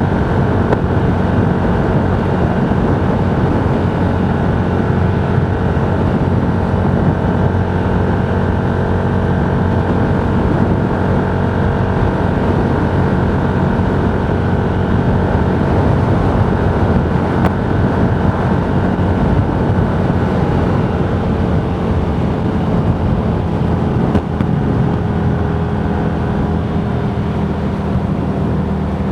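Motorcycle cruising at a steady road speed: the engine runs evenly under wind rushing past the microphone.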